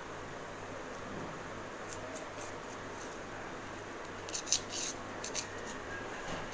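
Metal spatula cutting through a bread omelette and scraping and clicking against a stainless-steel plate: a few light scrapes about two seconds in, then a louder run of scrapes and clicks past the middle.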